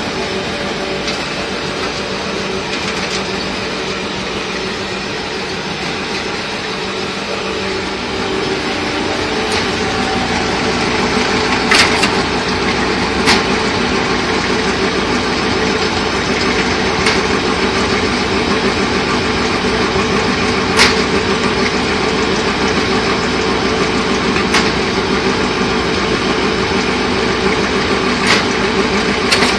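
Corn silage packaging machine running, a steady mechanical drone that grows a little louder partway through, with a sharp clack repeating about every four seconds.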